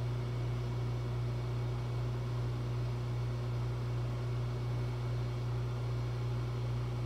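Steady low hum of running shop machinery, a constant drone that does not change.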